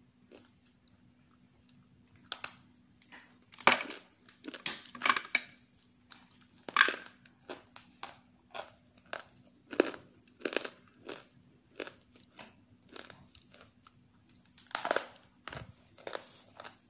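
Hard, half-roasted grey clay being bitten and chewed: irregular sharp cracks and crunches, the loudest about 4, 7, 10 and 15 seconds in. A faint steady high whine and low hum sit underneath.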